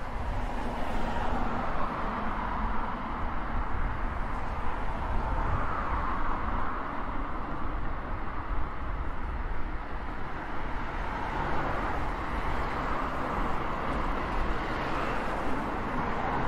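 Road traffic: cars passing one after another on a wet road, their tyre hiss swelling and fading every few seconds over a constant low rumble.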